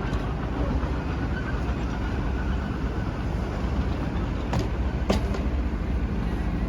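Hydraulic breaker on a small backhoe hammering frozen ground, a rapid, even pounding over the running diesel engine. Two sharp clicks stand out about four and a half and five seconds in.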